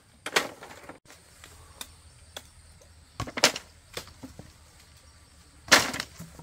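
Dry bamboo poles and branches being handled as firewood: short clattering, rustling crashes of wood and brushwood, once just after the start, again about three seconds in, and loudest near the end as a branch is pulled out of the undergrowth.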